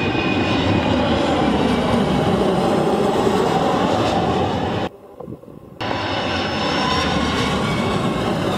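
Jet airliner engines running loud as landing aircraft pass close: a steady rush with a faint whine over it. It cuts off abruptly about five seconds in for nearly a second, then comes back just as loud.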